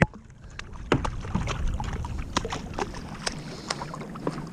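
Choppy water splashing and slapping against the plastic hull of a Lifetime Tamarack Angler 100 fishing kayak, with a string of irregular small splashes and knocks.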